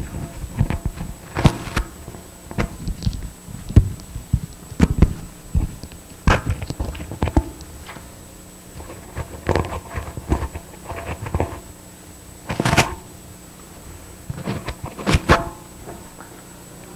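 Irregular knocks and thumps, sharp and scattered at uneven spacing, with the loudest about three-quarters through and a close pair of knocks near the end.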